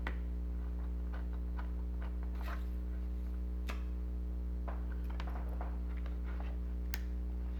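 Scattered light clicks and taps of small tools and parts being handled during a toy repair, over a steady low electrical hum.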